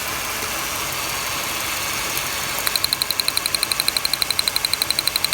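Ford 3.0 V6 idling rough with a cylinder misfire. About halfway through, a rapid, even ticking starts, about eleven a second, typical of spark snapping across a spark tester on a plug wire that still fires.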